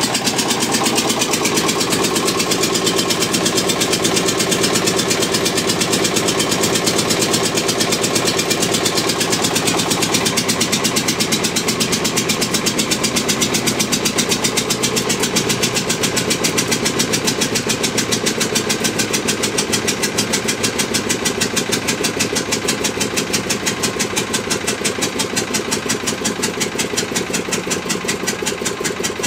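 Witte diesel generator engine running with a steady, rapid beat of firing strokes, growing slowly quieter as it is being shut down after a full day's run.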